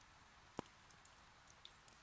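Faint crackle of wood burning in an irori hearth: one sharp pop about half a second in and a few tiny ticks, over a soft steady hiss of rain.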